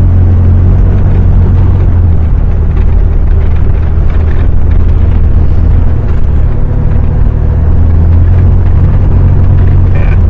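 Vehicle engine and drive noise heard from inside the cab while driving, a steady low drone with no breaks.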